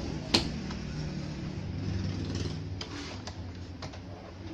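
Handling noise from a CRT television's circuit board and its cable being moved about: one sharp click about a third of a second in, then a few faint clicks, over a steady low hum.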